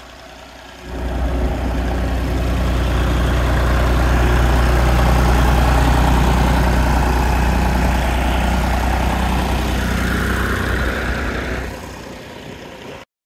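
An engine running steadily with a low, even hum. It starts about a second in and drops away near the end.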